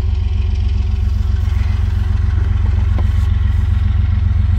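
Steady low drone of an idling engine running throughout, with a faint click about three seconds in.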